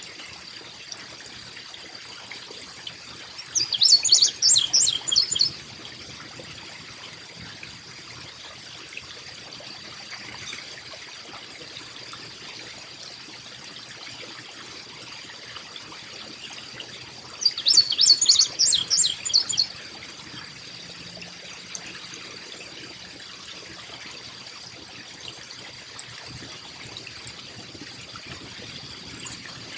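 Carolina chickadee giving two bursts of rapid, high call notes, about 4 and 18 seconds in, each lasting around two seconds. Under them a steady trickle of running water and a thin, steady high tone.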